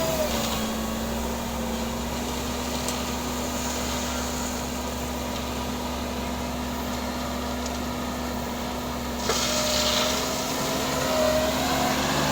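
Engine of heavy construction machinery running steadily with a held hum. About nine seconds in, a louder, hissier sound joins suddenly, with short whining glides.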